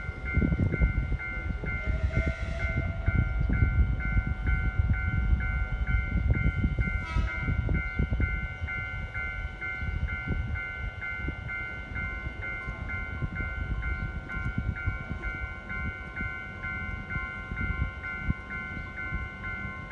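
Railway crossing warning chime ringing two alternating tones about twice a second, over the low rumble of a passing train that is loudest in the first half. A brief sharp sound comes about seven seconds in.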